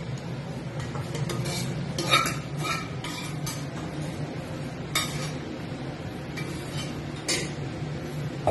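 A metal spatula scraping out a non-stick kadai and clinking against it and the rim of a stainless steel pot: a series of sharp clinks at irregular intervals, with scraping in between, over a steady low hum.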